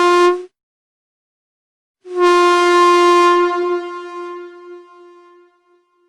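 Truck air horn blasting a single steady tone: one blast cuts off half a second in, then after a second and a half of silence a second long blast sounds and fades away over its last second or so.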